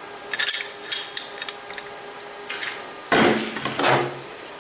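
Small steel latch parts being handled: a few light metallic clinks, then a louder scraping clatter of metal about three seconds in that lasts about a second.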